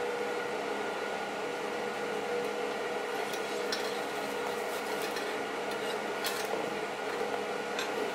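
Steady electric machine hum with a fixed whine, like a fan running, with a few light clicks of small metal parts being handled on a steel table.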